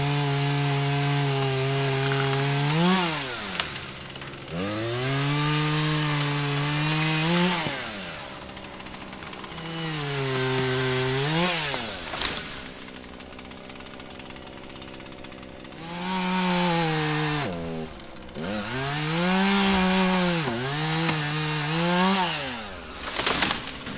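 Chainsaw cutting wood in a series of cuts. The engine holds a steady pitch under load, revs up briefly as each cut finishes, then drops back to a quieter idle, with a longer idle about halfway through.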